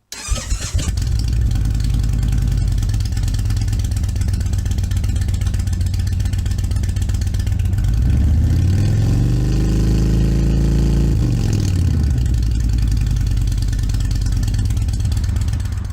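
Indian Springfield V-twin motorcycle engine idling through its exhaust, revved once about eight seconds in, held high for a couple of seconds and dropping back to idle just after eleven seconds.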